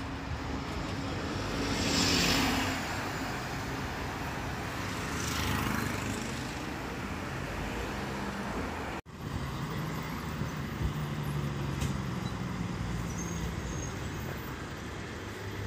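Road traffic at the curb: a bus and cars driving past, with two louder passes about two and five seconds in. A brief dropout near the middle, then a steadier low hum of traffic.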